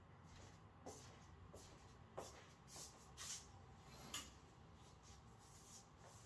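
Near silence in a small room, broken by a few faint, brief clicks and rustles about a second apart, the loudest a little after four seconds in.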